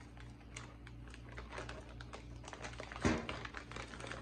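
Light clicks and rustling of a small package and the part inside being handled, with one louder knock about three seconds in, over a steady low hum.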